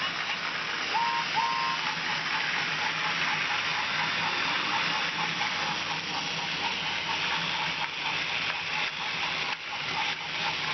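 Battery-powered Trackmaster toy trains running on plastic track: a steady whirring hiss of small electric motors and wheels, with a faint high whine.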